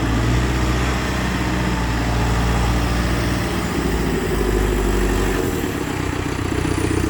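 Diesel engine of a 2011 CAT 420E backhoe running steadily, its note shifting a couple of times partway through.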